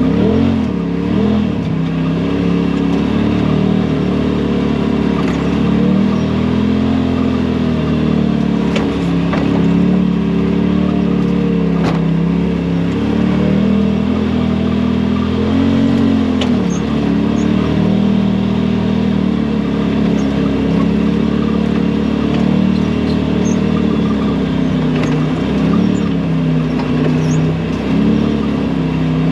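Side-by-side UTV engine running under load on a trail, its pitch stepping up and down with the throttle, with a couple of faint knocks.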